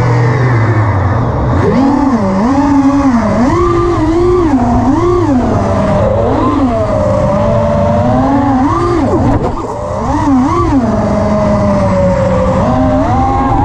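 FPV quadcopter's brushless motors (Armattan Oomph 2203, 2300kv) and props whining, the pitch rising and falling quickly over and over as the throttle is worked, with a steadier stretch near the middle.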